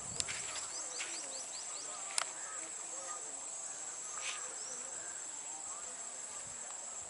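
Steady high-pitched insect drone, with a quick run of short falling chirps in the first two seconds and a few sharp clicks, the loudest a little after two seconds in.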